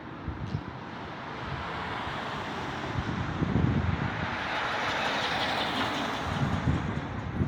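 A vehicle passing by, its road noise swelling to a peak about five to six seconds in and then fading, with wind buffeting the microphone.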